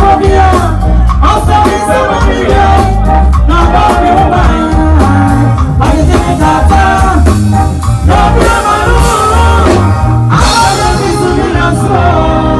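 Live band music: a woman singing lead through a microphone and PA system, backed by a drum kit.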